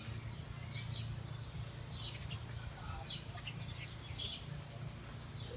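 Small birds chirping in the background: many short, high, falling chirps, over a steady low hum.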